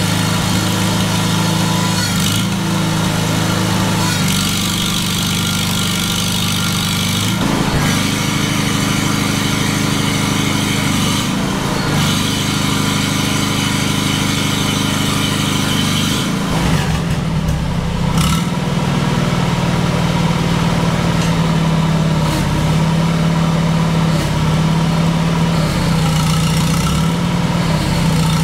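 Farmall Super C's four-cylinder engine running at a steady idle, its note shifting several times along the way. It is running the freshly rebuilt hydraulic pump, with the fill plug off to burp air out of the system.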